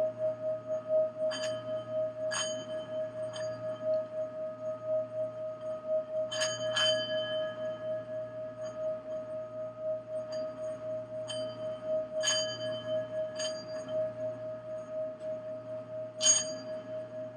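Singing bowl sounding a steady ringing tone with a slow pulsing waver. Higher metallic notes are struck over it about nine times, mostly in groups of two or three, each ringing on briefly.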